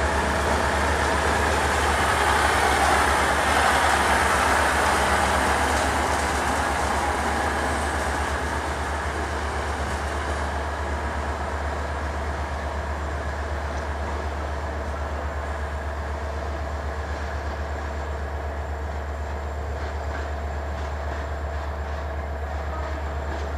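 Diesel multiple unit moving through a station: a steady rumble of engine and wheels on the rails, loudest a few seconds in and then easing off a little.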